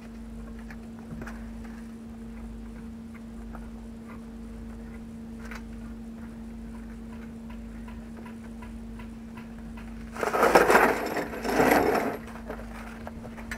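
Light clicks and taps of hand tools working on a truck's wheel hub over a steady low hum, then two louder, harsher noisy bursts, each about a second long, about ten seconds in.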